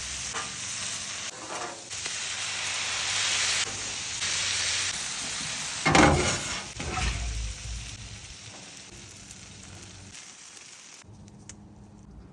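Stir-fry sizzling in a hot pan, with a sharp clatter about six seconds in; after that the sizzle steadily dies down.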